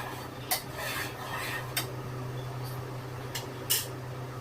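A metal spoon scraping and clinking against a cooking pot, with a few sharp clinks, the loudest about half a second in and near the end. A steady low hum runs underneath.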